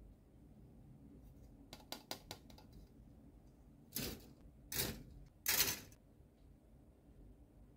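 Plastic model-kit runners being handled: a quick run of light plastic clicks, then three short, louder plastic rattles as runners are laid down onto the stacked pile, the last the loudest.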